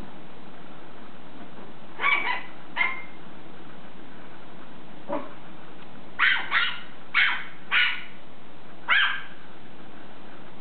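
Small dog yapping in short, high-pitched barks: three about two seconds in, one faint yap a few seconds later, then a run of five between about six and nine seconds.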